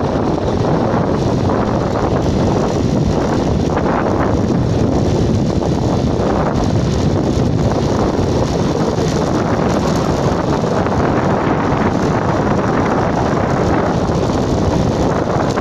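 Steady wind noise buffeting the microphone from a moving vehicle, mixed with the rumble of tyres rolling over a loose gravel road base.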